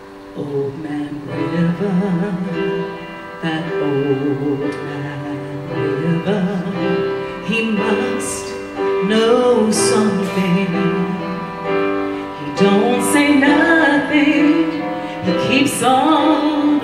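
A woman singing a slow show-tune ballad into a microphone, holding long notes with vibrato over piano accompaniment; the music grows louder about two-thirds of the way through.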